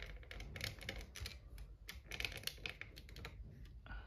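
Rapid, irregular light clicks and crackles of adhesive tape and a plastic sensor housing being handled.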